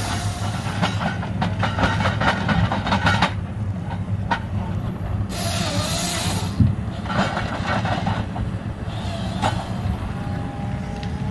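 Link-Belt tracked log processor running, its diesel engine steady under repeated clattering and knocking as the processor head handles logs, with a wavering whine near the middle and one hard knock about six and a half seconds in.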